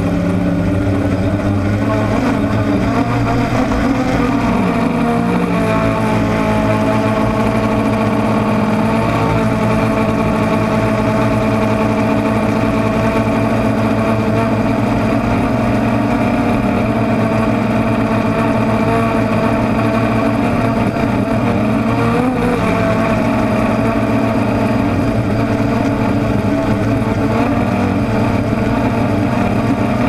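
DJI Phantom quadcopter's motors and propellers buzzing steadily in flight, several pitches that drift slightly up and down, heard close up from the camera carried on the drone.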